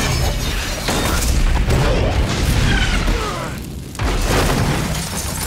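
Film explosion sound effects: a sudden blast right at the start with rumbling debris, then a second heavy blast about four seconds in as a fireball erupts by a parked car.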